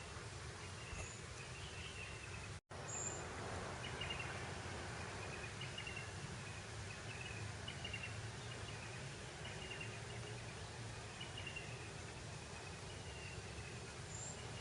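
Open-grassland ambience: a steady breeze hiss with high, slightly falling chirps repeating roughly once a second from small creatures in the grass. A split-second gap cuts all sound about two and a half seconds in.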